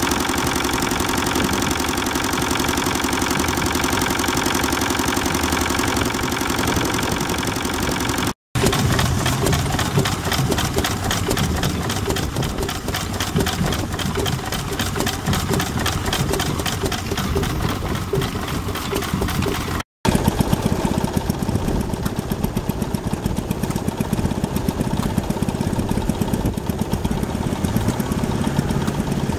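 Vintage stationary engines running steadily, heard in three shots. First comes a green engine driving a generator, with a steady tone. Then a belt-driven Lister Junior hopper-cooled single-cylinder engine firing with a regular beat, and finally a small engine on a trailer with a quicker, ticking beat.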